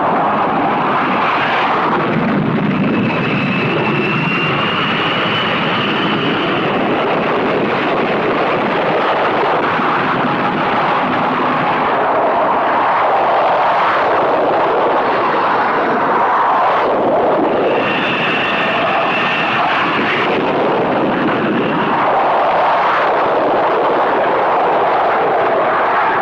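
Carrier jet aircraft engines running loud during catapult launches: a steady, dense engine noise with a high turbine whine that rises a few seconds in and comes back about two-thirds of the way through.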